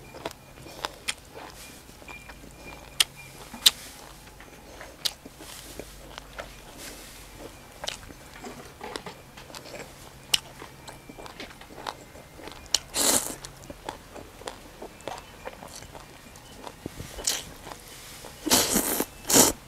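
A person eating rice noodles by hand: steady small wet clicks of chewing, with a loud slurp about 13 seconds in and a few more loud slurps near the end.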